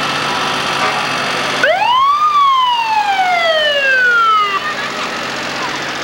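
A siren sounds once, winding up quickly in pitch and then sliding slowly back down over about two seconds before it stops, over a steady background of street noise.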